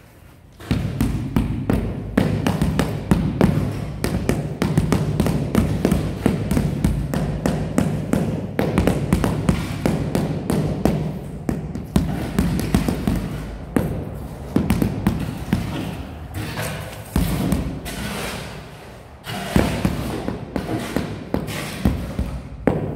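Rubber mallet tapping a large ceramic floor tile over and over, a steady run of dull thuds as the tile is bedded down into the fresh mortar beneath it. The tapping eases briefly about three quarters of the way through, then picks up again.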